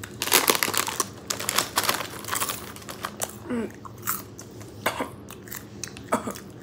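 Popcorn being chewed close to the microphone: quick crunching bites, thick in the first few seconds, then slower chewing with a few scattered crunches and a brief voiced sound near the middle.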